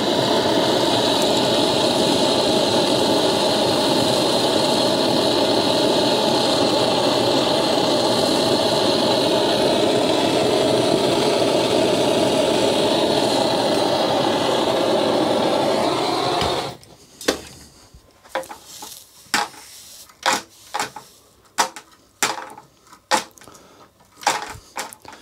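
A motor-driven wire wheel running steadily while the end of a steel wire is cleaned on it before soldering, its pitch dipping slightly under load near the end; it stops about two-thirds of the way through. After that, a scatter of sharp clicks and knocks as parts are handled.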